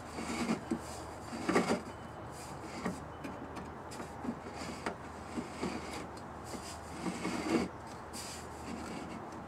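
Steel canister of a large semi-truck oil filter turned by hand against a radial arm saw blade, scraping and rubbing in irregular strokes, the loudest about a second and a half in, as the blade scores a cutting line around it.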